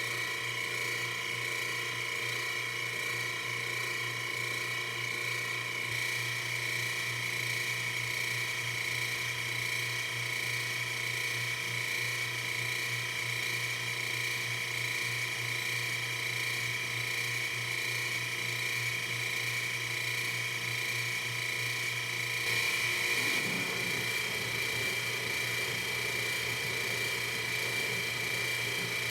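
Metalworking machine tool running steadily while a new nut is machined, with a constant high whine and a low hum. About 22 seconds in, a rougher noise joins in over the running sound.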